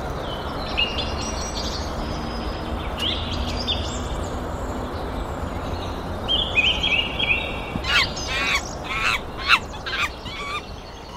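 Wild songbirds singing: high warbling, trilling phrases, then a run of about five loud, sharp downward-slurred calls near the end, over a steady low rumble.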